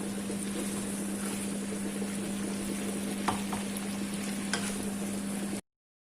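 Spicy pepper chicken wings sizzling as they fry in a pan, with a steady hum underneath and a few light clicks of a stirring utensil against the pan. The sound cuts off suddenly near the end.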